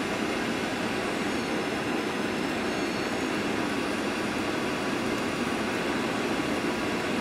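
Cabin noise of a Boeing 737-800 on final approach, heard from a window seat beside the wing: a steady rush of airflow and CFM56 engine sound.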